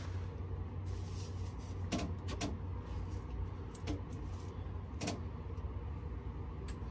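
A steady low hum with a few short clicks and knocks of metal engine parts being handled, the sharpest about two seconds in and again around four and five seconds.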